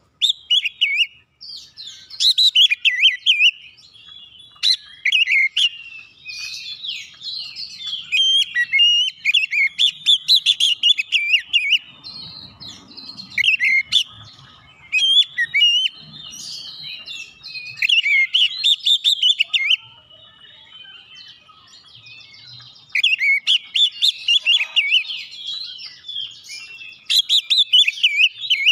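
Oriental magpie-robin (kacer) singing loudly, with varied phrases of rapid whistled notes that come in bursts of one to a few seconds, separated by short pauses.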